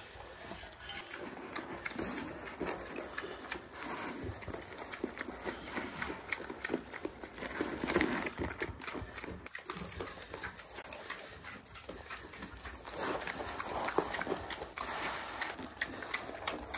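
Two pigs eating pelleted feed and corn from a rubber feed pan: a steady run of irregular crunching and chewing as they nose through the grain.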